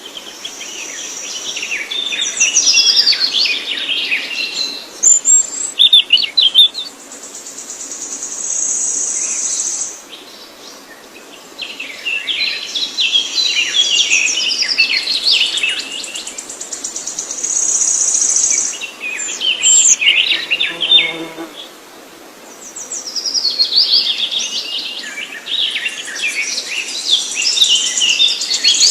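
Songbird singing in bouts of rapid, varied chirps and trills, about every ten seconds, each bout joined by a high, steady buzzing trill of about two seconds.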